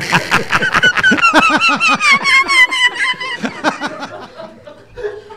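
Several men laughing hard together, one with a high-pitched, wavering laugh that slides down in pitch; the laughter dies down about four seconds in.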